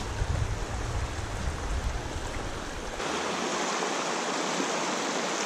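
Shallow mountain creek rushing over rocks and cobbles, a steady hiss of running water. A low rumble under it drops out about three seconds in, and the water sound turns brighter.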